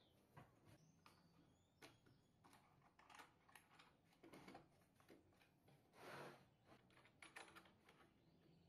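Near silence with scattered faint clicks and knocks of a plywood planer stand and its wing-nut fittings being handled and adjusted, and a brief rustle about six seconds in.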